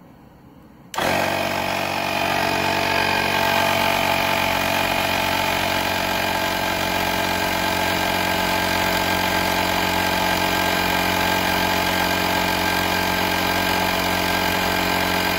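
AstroAI 12V portable tire inflator switching on about a second in and running with a steady, loud drone as its compressor pumps air into a car tire, measuring about 93 dB on a sound meter held next to it.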